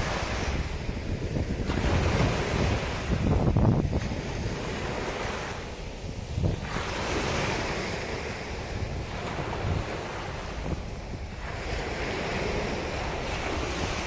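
Ocean surf breaking and washing up the sand at the water's edge, swelling and fading as each wave comes in, with wind buffeting the microphone.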